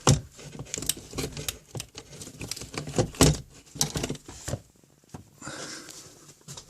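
Hands handling small hard parts: a quick run of clicks and light knocks, thinning out after about four and a half seconds into a faint rustle.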